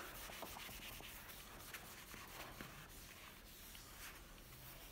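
Faint rubbing of a whiteboard eraser wiped across a small dry-wipe board.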